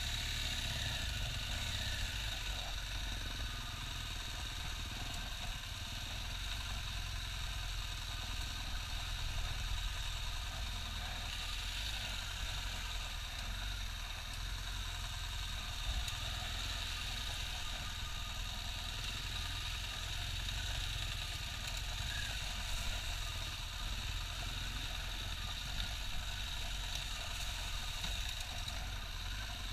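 BMW R1200GS's flat-twin boxer engine running steadily at low revs as the motorcycle rides along a dirt single-track trail.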